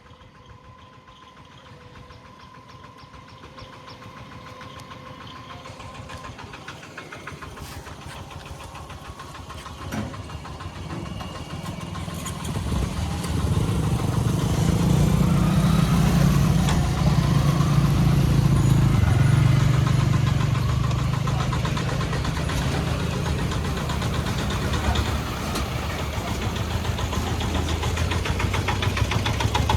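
Vande Bharat Sleeper Express electric trainset running past: the rumble of its wheels on the rails builds gradually and turns loud and dense about twelve seconds in, staying heavy to the end.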